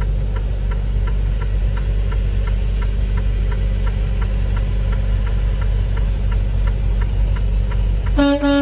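Semi-truck diesel engine running at low speed, heard as a steady rumble inside the cab, with an indicator flasher ticking about twice a second. A brief pitched tone sounds near the end.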